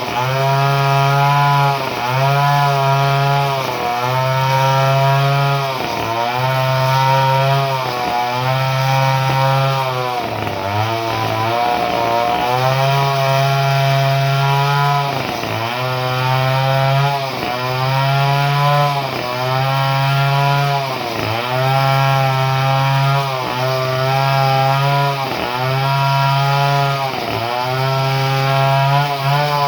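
Chainsaw with a modified ignition running at high revs, its pitch dipping briefly and recovering about every one and a half seconds.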